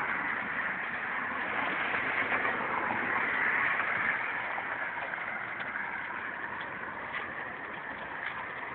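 Steady rush of tyre and wind noise from a moving car, rising a little about three seconds in and then slowly easing off.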